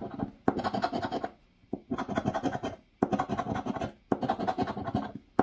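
Poker chip scraping the coating off a scratch-off lottery ticket in rapid strokes, in four runs of about a second each with brief pauses between.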